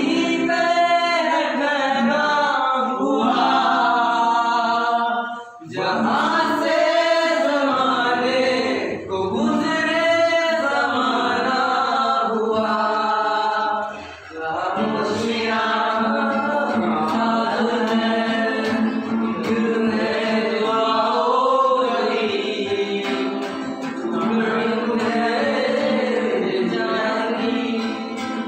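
Men singing a song together to a strummed acoustic guitar, with two short breaks in the singing.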